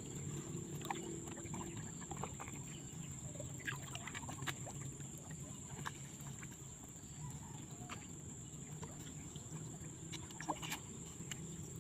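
Water lapping and dripping, with small splashes and soft clicks, as hands work a small fish out of a fine-mesh fishing net in the water. A thin, steady high-pitched whine sits underneath.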